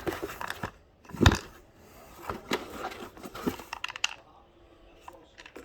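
Handling noise from a cord kit canister being worked by hand: scattered clicks and rustles, with one sharp knock about a second in.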